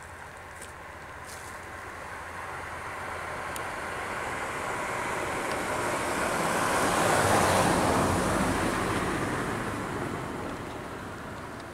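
A vehicle passing on a road: a swell of road noise that builds slowly, peaks about seven and a half seconds in, and fades away again.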